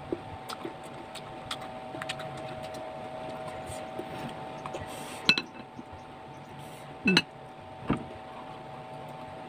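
Eating sounds: light clicks and clinks of fingers and ceramic bowls as slices of green mango are picked out of the dish and chewed, with a few sharper clicks past the middle and near the end, over a steady hum.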